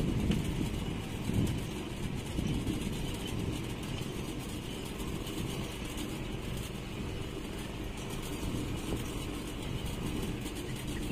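Twin Yamaha 200 hp two-stroke outboard motors running steadily with the speedboat underway, a low rumble mixed with wind and water noise.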